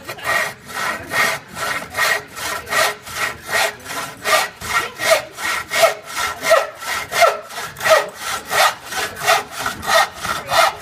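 Hand crosscut saw cutting through a wooden board, each stroke a short rasp of teeth through wood, in a brisk, even rhythm of about three strokes a second.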